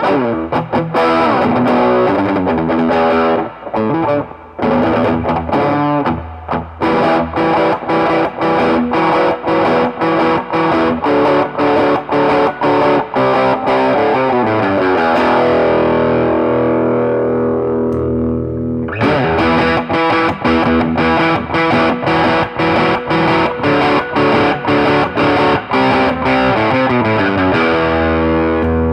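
Electric guitar played through a Mesa Boogie 5:25 Express 1x10 combo amp with an overdriven tone: fast picked riffs, with a stretch of held chords about halfway through before the fast picking resumes.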